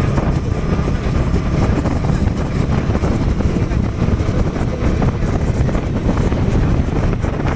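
Motorcycle riding along: engine running under steady rumbling wind noise buffeting the action camera's built-in microphone.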